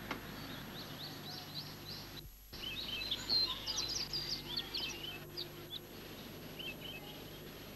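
Small birds chirping with many short, high calls over a faint steady background. The sound cuts out briefly a little over two seconds in, then the chirping comes back livelier.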